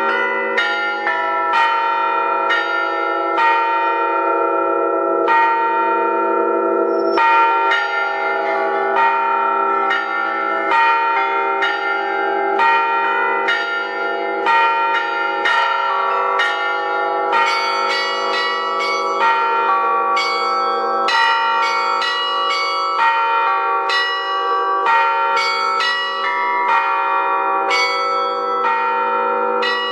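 Russian-style artistic bell ringing on thin-walled bells together with thick bila, struck in a fast, dense sequence over a steady low ringing hum. The strikes come thicker and brighter a little past the halfway point.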